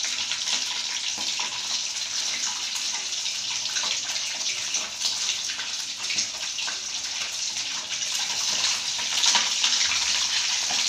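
Fish frying in hot oil in a wok over a gas flame: a steady sizzle with many small crackles and spits, a little stronger near the end.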